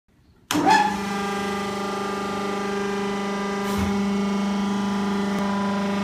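Vertical hydraulic baler's electric motor and hydraulic pump starting up about half a second in, then running with a steady hum. A brief clunk comes just before four seconds in, and the hum runs a little louder after it.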